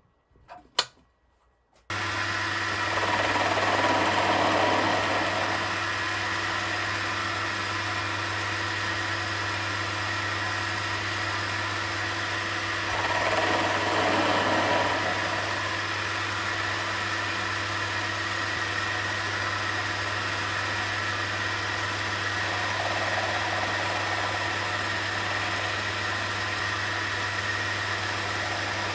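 A Myford Super 7 lathe switches on suddenly about two seconds in, after a few light clicks, and runs steadily with a low motor hum and a steady whine. The sound swells louder a few times as light facing cuts are taken on the end of the bar.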